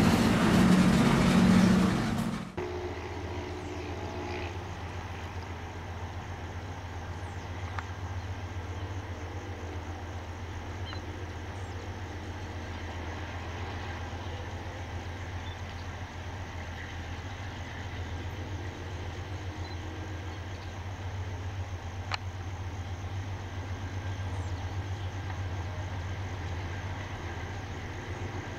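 A freight train's boxcars rolling past close by, cut off abruptly about two seconds in. After that, the low steady drone of diesel locomotives running in the distance.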